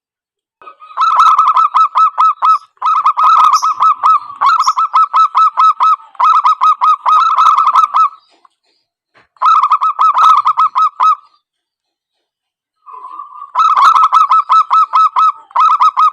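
Zebra dove calls: rapid staccato trains of cooing notes, about five or six a second, in several bursts with short pauses between them.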